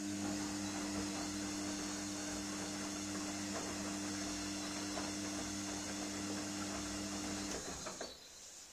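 Gorenje front-loading washing machine turning its drum during the wash: a steady motor hum with the swish of water and laundry tumbling, stopping near the end as the drum comes to rest.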